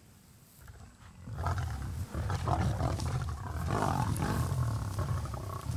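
Lionesses growling over a fresh kill as they feed and compete for mouthfuls. The growling starts loud and low about a second in and goes on unbroken.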